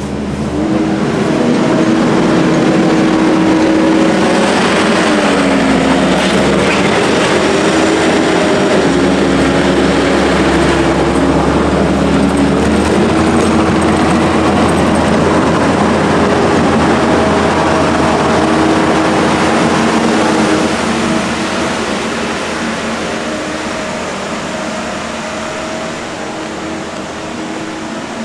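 An engine running continuously, its pitch dipping and rising over several seconds as if under changing load. It is loud for about twenty seconds, then eases off somewhat.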